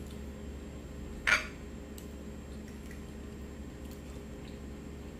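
Eating from a plate with a metal fork: one short, louder noise about a second in, and a few faint clicks, over a steady low hum.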